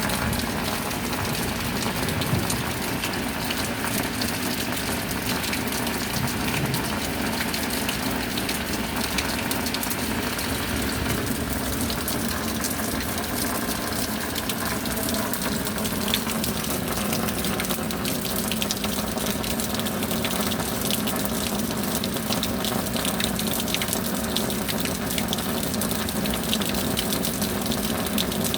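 Steady rain: an even, unbroken hiss of falling water with many small drop ticks through it.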